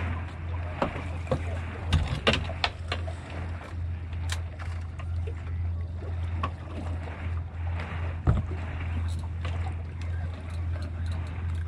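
On-board sound of a small fishing boat on open water: a steady low hum under water and wind noise, with a few sharp knocks, the loudest about two seconds in and again past eight seconds.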